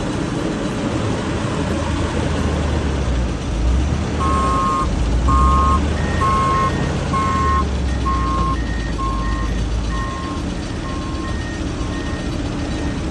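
Heavy machinery engine running steadily, with reversing alarms beeping about one and a half times a second. One alarm starts about four seconds in, a higher-pitched one joins about two seconds later, and the lower one fades out near the end.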